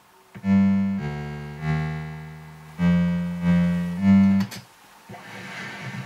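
Commodore 64 SID sound chip playing synthesizer music: a few held chords, each loud at the start and fading, for about four seconds, then a quieter, hissy passage with a low pulsing beat.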